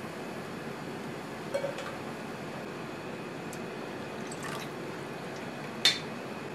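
Seasoning poured from a glass bottle into dashi in an aluminium saucepan: a brief trickle of liquid into the pan, with small knocks before it and one sharp clink near the end, over a steady background hiss.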